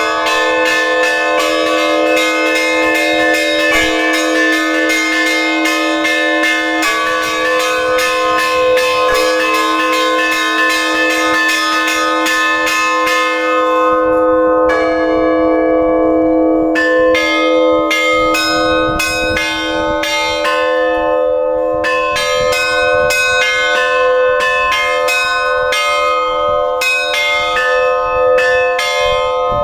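Festive Orthodox church bell ringing (zvon): rapid strikes of several smaller bells over the steady ringing of a deeper bell. About 14 s in, the quick strikes stop for a few seconds, then resume in a sparser pattern.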